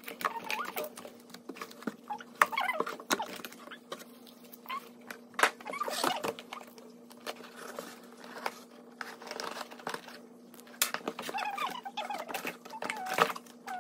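Cardboard box flaps and card inserts rustling and scraping, with plastic-lidded cat-food cans knocking and clicking as they are handled and set down, and short squeaky scrapes among them. A steady low hum runs underneath.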